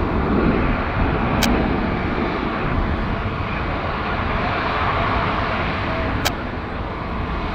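Airbus A220-300's Pratt & Whitney PW1500G geared turbofans running at taxi power as the jet rolls along the taxiway, a steady engine noise. Two sharp clicks stand out, about five seconds apart.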